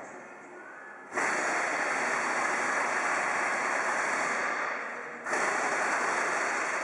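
Compressed-air blow gun hissing in two long bursts, starting abruptly about a second in and cutting off for a moment near five seconds before blowing again.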